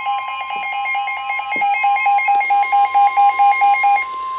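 Weather radio warning alarm: a steady electronic alert tone with a fast electronic beeping over it, about six beeps a second. Near the end the beeping stops and the steady tone carries on alone, the alarm that comes before a spoken severe thunderstorm warning.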